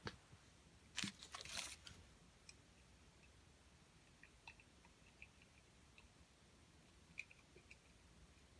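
Near silence, broken by a brief cluster of clicks and rustling about a second in and a few faint ticks later: small objects being handled out of view.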